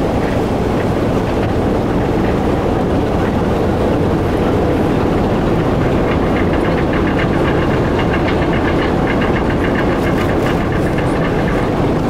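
Steady low drone and rumble of the passenger ferry Hotspur IV's diesel engine, heard from the open deck while under way. About six seconds in, a light rapid ticking rattle sets in over the drone.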